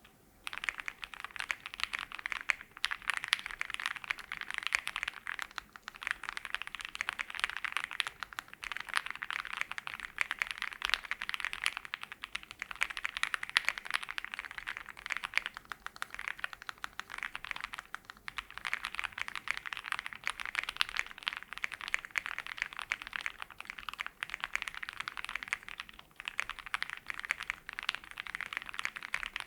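Fast, continuous typing on a Zoom65 Essential Edition V2 mechanical keyboard with lubed and filmed Opblack switches on a polycarbonate plate, all foams installed, under GMK double-shot ABS keycaps: a soft, thocky key sound. The typing starts about half a second in and runs in quick strings with a few short pauses.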